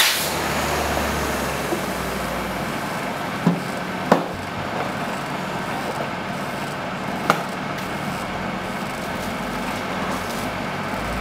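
Four sharp, separate chops, a knife or cleaver striking a coconut a few seconds apart, over a steady background of street noise with a low rumble of passing traffic.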